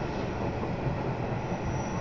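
Narrow-gauge mountain train running, a steady rumble of wheels on the rails heard from inside the carriage, with a faint high squeal coming in near the end.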